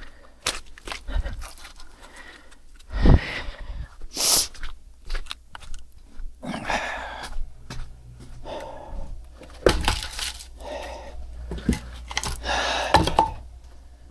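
Firewood being handled and broken: scattered knocks, cracks and rustling, with a few longer noisy stretches that may be heavy breaths.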